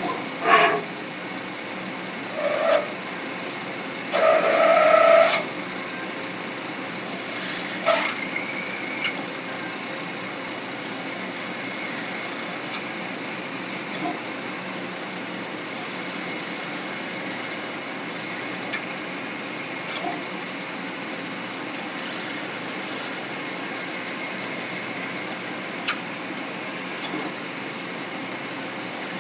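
Hurco BMC 20 CNC vertical machining center milling a metal plate: the spindle and cutter run with a steady machining noise. Several short whining bursts come in the first five seconds, and a few sharp clicks follow at intervals.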